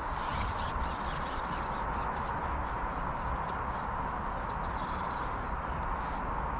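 Steady outdoor background noise with faint, high bird chirps now and then.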